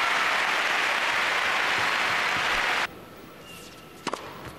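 Arena crowd applauding a won point, cut off abruptly a little under three seconds in; then a quieter hall with a couple of sharp knocks of a tennis ball on the court.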